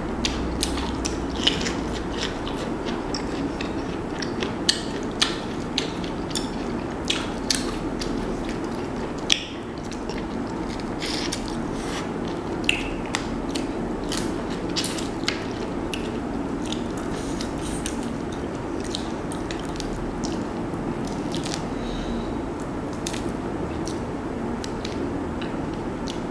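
Close-up eating sounds: biting and chewing corn on the cob and boiled shrimp, with many sharp clicks and crackles as the shrimp shells are peeled, over a steady background noise.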